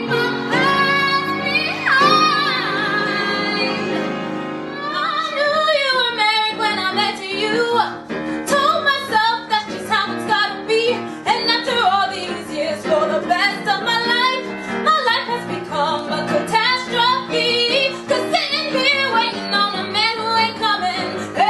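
A song with a female voice singing over instrumental accompaniment. She holds long notes at first, then sings a quicker, moving melody from about five seconds in.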